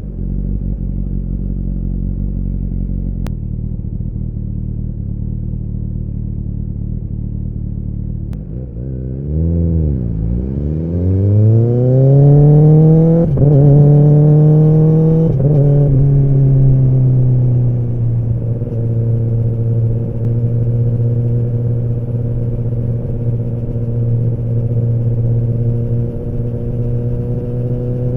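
Kawasaki ZX-10R inline-four engine and exhaust running steadily at low revs, then pulling away about ten seconds in: the revs climb through two upshifts a couple of seconds apart, then ease back and settle into steady cruising.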